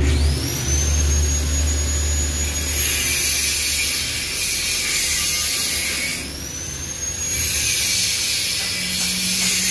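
TIG welding arc on thin stainless steel hissing steadily, the hiss growing louder in stretches. A high whine rises in pitch and levels off twice, about six seconds apart.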